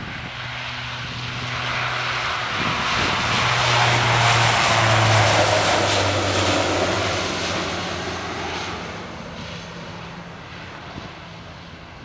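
Bombardier Dash 8 Q400 turboprop airliner at takeoff power, its engines and propellers growing louder to a peak about halfway through, then fading as it climbs away. A low propeller hum drops in pitch as the aircraft passes.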